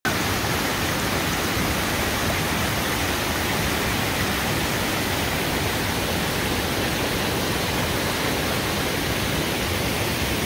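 Creek water rushing over rocks and small cascades: a steady, even rush of water.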